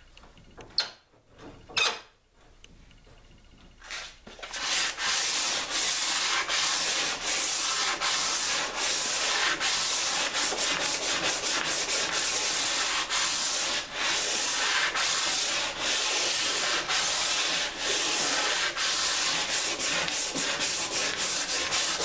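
Sandpaper rubbing along a zebrawood staff by hand in brisk back-and-forth strokes, a continuous scratchy hiss that starts about four seconds in. Before it, two short sharp knocks about a second apart.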